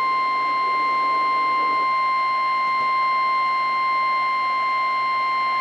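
NOAA Weather Radio warning alarm tone: a single steady 1050 Hz beep with overtones, held at an even level. It is the alert signal that a warning broadcast, here a severe thunderstorm warning, is about to follow.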